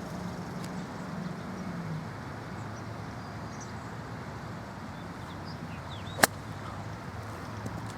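A golf club striking a golf ball once: a single sharp click about six seconds in, over a steady low outdoor hum with a few faint bird chirps.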